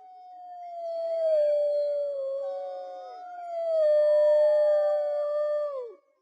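Wolves howling in chorus: long, steady howls that overlap, one sliding slightly down in pitch while a second joins a few seconds in. Higher voices sit faintly above, and the howls end together with a quick downward drop just before the end.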